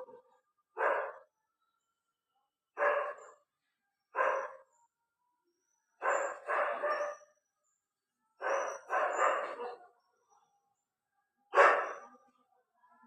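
Dog barking in short single barks at irregular intervals, eight in all, two of them coming as quick doubles, with silence between.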